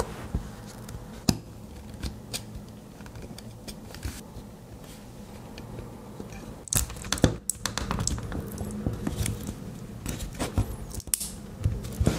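Close-up handling noise of small earphones being taken apart by hand: scattered sharp clicks, snips and scrapes of small plastic parts, busiest from about seven seconds in, over a faint steady low hum.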